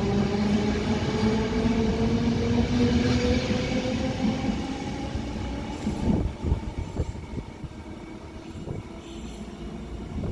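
ÖBB class 4020 electric multiple unit pulling out, its traction motors whining and rising steadily in pitch as it accelerates. About six seconds in this gives way to a quieter rumble with clicks of wheels on rail as another 4020 train approaches.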